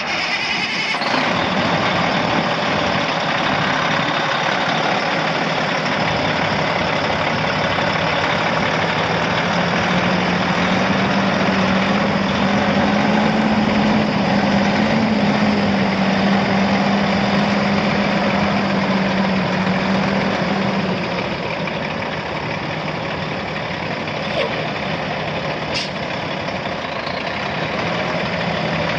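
Caterpillar C13 six-cylinder diesel in a Peterbilt 387 semi truck starting up and running steadily. Its speed rises a little from about a quarter of the way in, holds, then settles back to idle about two-thirds of the way through.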